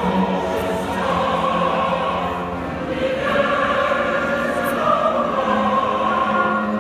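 Choral music with held, sustained voices, a new chord entering about a second in and again about three seconds in.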